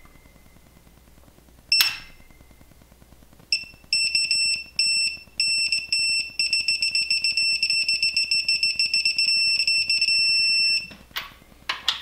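Digital torque wrench beeping as a main bearing cap bolt is tightened. One short beep comes first, then beeps that come closer together and run into a steady rapidly pulsing tone for about four seconds: the wrench signalling that its set torque has been reached. The tone cuts off, followed by a couple of light clicks.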